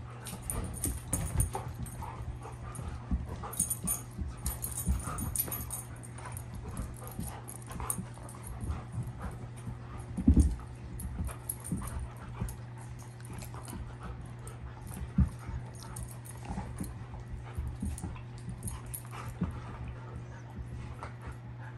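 Irish Setter dogs play-wrestling: dog noises mixed with scuffling and knocking of paws and bodies on carpet and a leather couch, with a loud thump about ten seconds in.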